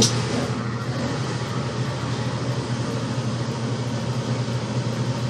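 Maytag MAV6000AWQ top-load washer running in its spin cycle, a steady motor hum and whir as the basket spins up. It starts suddenly at the outset and holds even.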